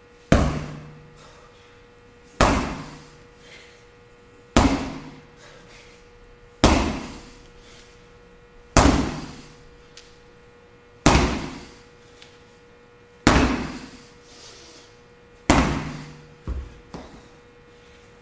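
Repeated heavy slams of workout equipment, eight in all, about two seconds apart and evenly paced. Each one rings out for about a second, over a faint steady hum.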